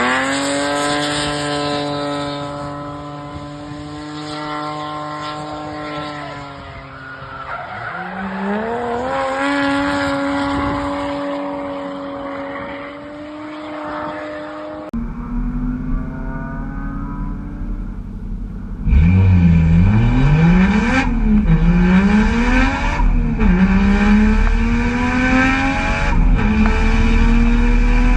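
BMW E36 with a swapped Toyota 1JZ straight-six engine drifting. First the engine is held at high revs while the tyres squeal. Then, louder, it revs rapidly up and down as the throttle is worked through the slide.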